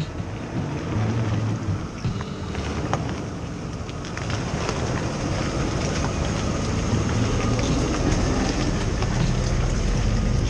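Off-road truck engine running at low speed on the trail, a steady rumble that grows a little louder over the seconds, with wind buffeting the camera microphone and a few small knocks.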